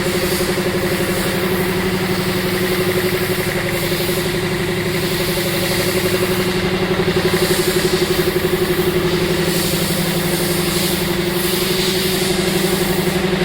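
A machine running steadily: an even motor hum with a fast fine pulse and a hiss over it.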